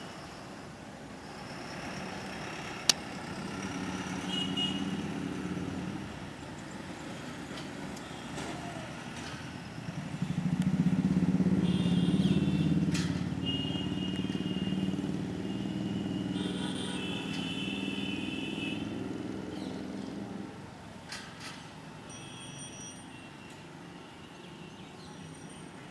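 A motor vehicle's engine going past, swelling to its loudest about ten seconds in and fading away. Short high bird calls come now and then over it.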